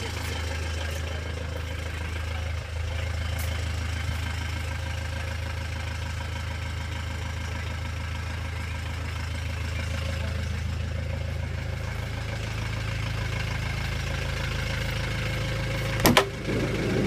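Volkswagen Transporter T4 van's engine idling steadily. Near the end there is a sharp clack, the van's driver's door being opened.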